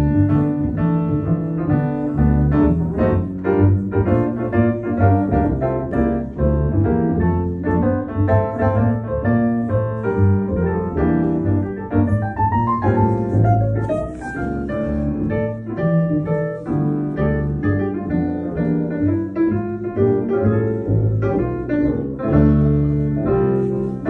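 Live jazz: piano playing chords and runs over an upright double bass.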